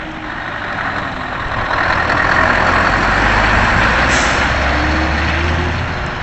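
Scania 164L 580 tractor unit's V8 diesel engine pulling away and driving close past, growing louder as it goes by, with a brief hiss about four seconds in.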